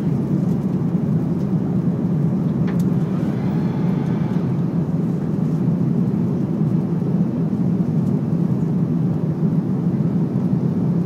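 Steady low drone of engine and airflow noise inside the cabin of an Airbus A330-300 climbing out after takeoff. The sound is even and unbroken throughout.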